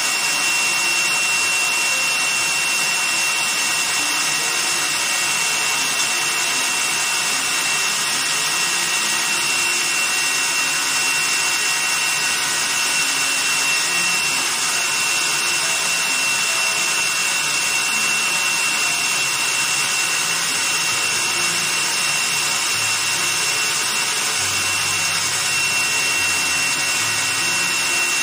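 Electric stand mixer running steadily, its motor whirring with a thin high whine on top, as the attachment beats a mixture in a stainless steel bowl.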